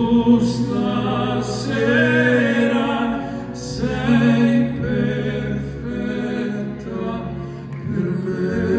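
Two male voices singing operatically over a live symphony orchestra, in long held phrases that break briefly about three and a half seconds in and again near the end.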